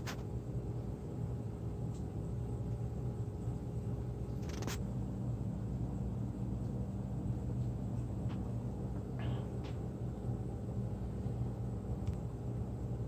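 A steady low hum with a faint steady tone above it, broken by a few small clicks, the sharpest about five seconds in.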